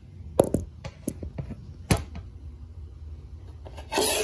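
Plastic US Army canteen knocking and tapping on a wooden floor as it is handled: a few sharp knocks in the first two seconds, then a brief scraping rush near the end.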